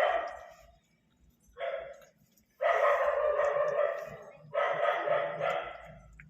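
Pomeranian barking in four bouts a second or so apart, the later bouts running on for a second or two.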